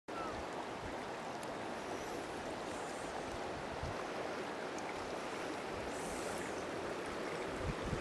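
Snowmelt-swollen river in spring flood rushing past the bank: a steady, even rush of water. Near the end, low gusts of wind start to buffet the microphone.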